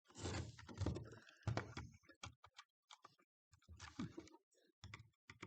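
A string of short clicks, knocks and scrapes from small plastic and metal parts being handled and worked loose while a battery pack is taken apart.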